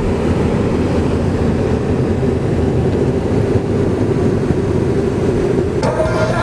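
Steady road and engine noise inside a moving car, a continuous low rumble. Music comes in near the end.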